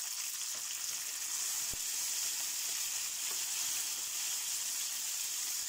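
Capers and sliced garlic sizzling steadily in hot olive oil in a frying pan, stirred with a wooden spoon.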